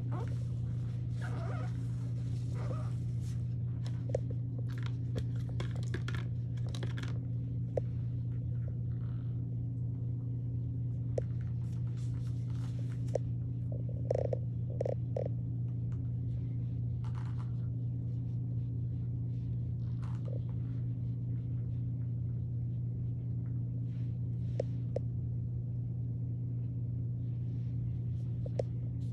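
A steady low hum, with faint scattered rustles and light ticks from a gloved hand working relaxer cream through hair with an applicator brush.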